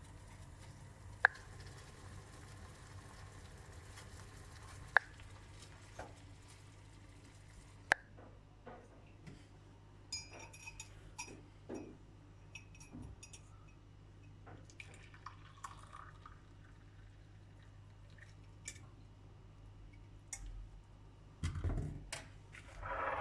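Glass and kitchenware clinking while tea is being prepared: three sharp ringing clinks in the first eight seconds, then smaller knocks and handling sounds, with a louder clatter near the end. A steady low hum runs underneath.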